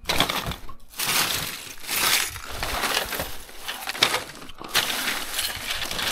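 Plastic bags crinkling and rustling, with hard plastic items clattering against each other, as hands rummage through a bulk bag of discarded electrical scrap; a sharp knock about four seconds in.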